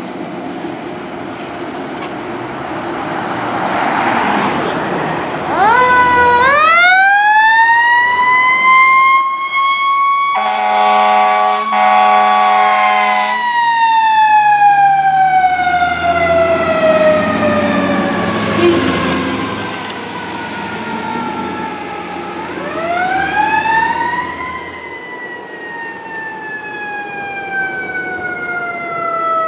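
Fire engine responding: its siren winds up to a high wail and slowly winds back down, twice, with a blast of the air horn partway through the first wail and the diesel engine running underneath.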